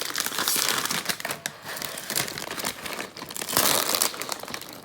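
Packaging being crumpled and handled, a dense run of crinkling and crackling with sharp clicks.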